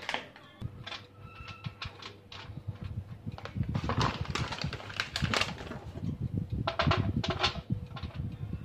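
Clicking and rattling of an oven rack and a baking tray of roasting almonds being handled, the almonds shifted about by hand, over a faint steady hum.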